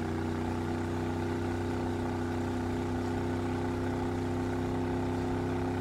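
Boat engine running steadily at a constant pitch, over an even hiss.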